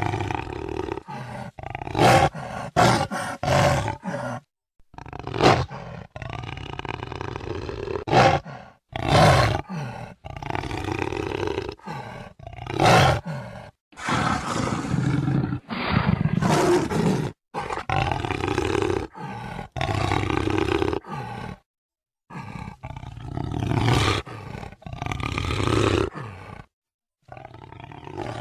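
Jaguar calling in a long run of roars and grunts, one call after another, broken by several sudden cuts to silence where recordings are spliced together.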